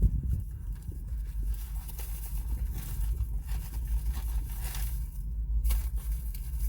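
Freight train rolling slowly past: a steady low rumble with wheel and rail noise, swelling now and then, and one sharp knock or squeal near the end.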